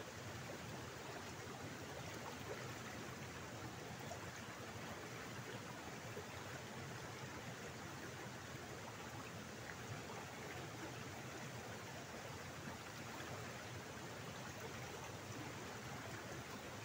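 Shallow water flowing steadily down a narrow stone-walled channel, an even, unbroken rush.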